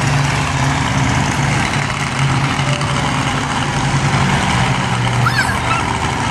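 A large engine running steadily, its low hum wavering a little in pitch, over a haze of outdoor crowd noise.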